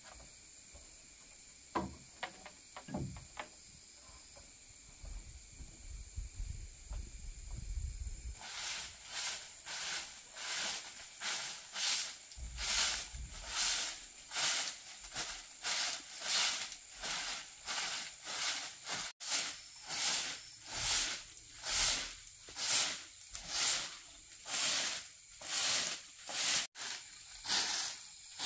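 Hand tool rasping back and forth on wood in steady strokes, a little over one a second, starting about eight seconds in after a few light knocks.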